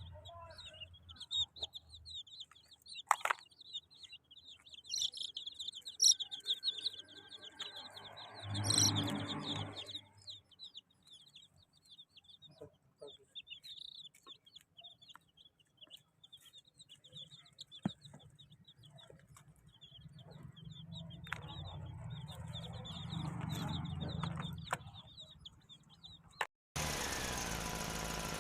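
Baby chicks cheeping: many short, high peeps overlapping in a continuous chatter. Near the end it cuts off abruptly and a steady mechanical hum begins.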